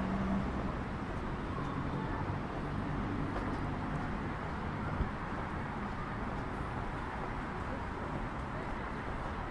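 Steady city street noise of traffic. There is a low hum in the first half-second and a single short knock about five seconds in.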